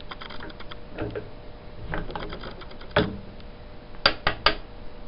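Small steel parts clicking and tapping together as a key is fitted into the freshly milled keyway of a shaft collar, ending in three quick sharp metallic clicks about four seconds in.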